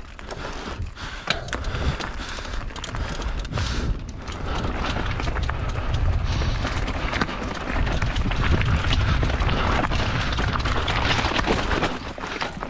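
Mountain bike descending a loose rocky trail: tyres crunching over stones and the bike rattling over the rocks, with a continuous low rumble on the microphone. It grows louder about four seconds in, as the pace picks up.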